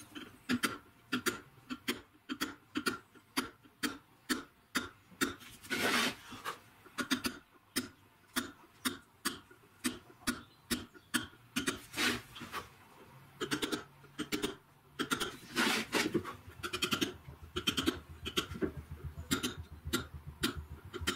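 Hand letter-carving in Welsh slate: a mallet tapping a steel chisel, each blow chipping slate along a letter. Steady taps about two or three a second, with a few short pauses.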